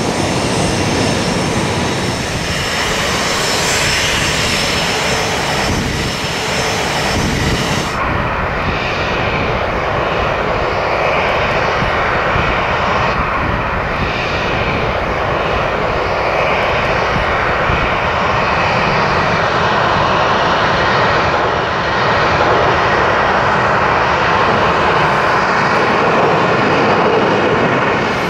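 Boeing 737-700's CFM56-7 turbofan engines running at taxi power: a steady jet rush with a faint high fan whine at first. The sound changes abruptly about eight seconds in, to a duller, steady engine roar.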